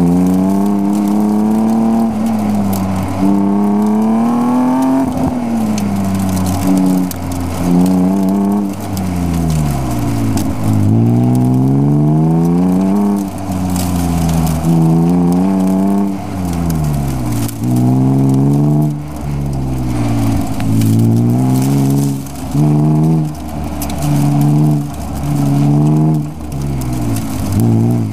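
BMW E36 M3's straight-six engine heard from inside the cabin, driven hard through an autocross course: it revs up and drops back again and again, in short climbs broken by lifts and braking between the cones.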